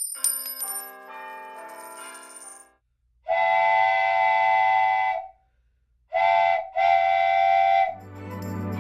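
Video intro sound effects: a quick run of chiming notes, then three whistle-like toots (long, short, long). Organ-like music starts near the end.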